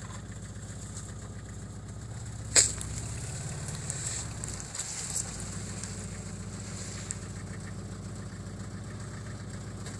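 Off-road vehicle engine idling steadily, its note swelling slightly for a couple of seconds near the middle, with one sharp click about two and a half seconds in.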